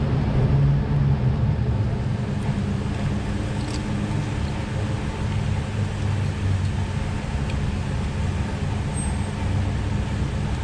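Infiniti G35's 3.5-litre V6 idling steadily, running with a new NGK ignition coil on cylinder 6 while it is checked for the cylinder 6 misfire.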